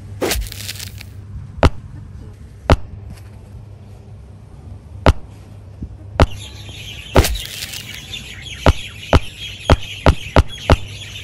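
A series of short, sharp knocks, spaced about a second apart and then coming faster, roughly two a second, near the end. A steady hissy background comes in about six seconds in.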